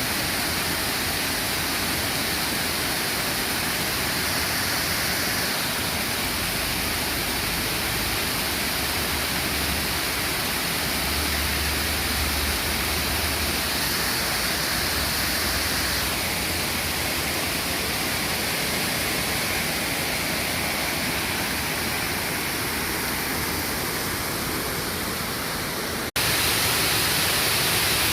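Water pouring over a waterfall: a steady, even rush of falling water. It breaks off for an instant near the end and comes back slightly louder.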